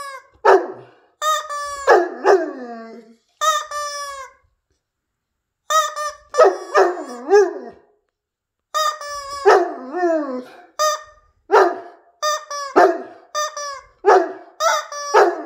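A rubber chicken squeeze toy squawks in short flat-pitched honks, and a Newfoundland dog answers each round with falling, howl-like barks. The calls come in clusters, with a couple of brief silent pauses in between.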